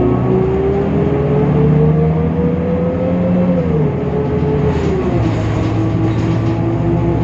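Temsa Avenue LF city bus pulling away: the DAF PR 228 diesel's pitch rises steadily, then drops about three and a half seconds in and again about a second later as the ZF Ecolife automatic gearbox shifts up, then holds steady.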